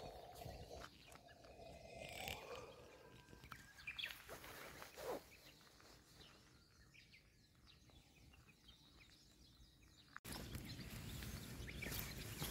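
Faint outdoor ambience with distant birds calling and a few soft footsteps. About ten seconds in, a louder steady hiss of outdoor noise comes in abruptly.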